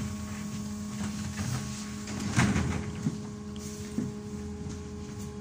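Inside a BKM 321 trolleybus: a steady electrical hum with a low rumble, broken about two seconds in by a loud rattling clatter of the body and fittings, and then two single knocks about a second apart.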